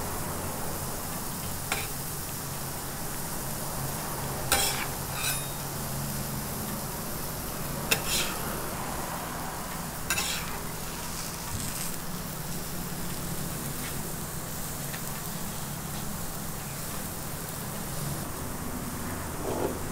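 Crepe sizzling on a round hot crepe griddle, a steady hiss, with a handful of sharp scrapes and clinks of a metal spatula on the griddle in the first half as the crepe is folded and rolled.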